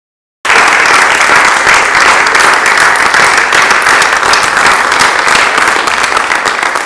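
Audience applause: loud, dense clapping that starts abruptly about half a second in, after a moment of silence, and eases slightly near the end.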